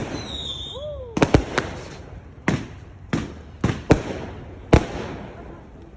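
Fireworks going off: a rapid, irregular string of about nine sharp bangs, several coming in quick pairs, with a short high whistle in the first second.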